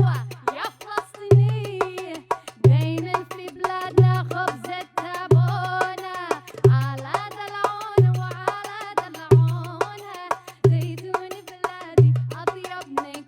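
Electronic soul music played live. A deep drum hits about every 1.3 seconds under fast ticking percussion, while a melodic lead slides up and down in pitch.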